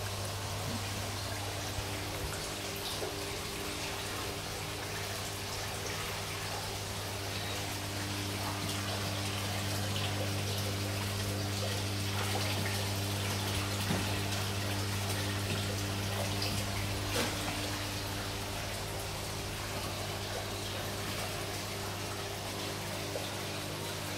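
A thin stream of water from a tube trickling and splashing steadily into a basin of water, over a steady low hum.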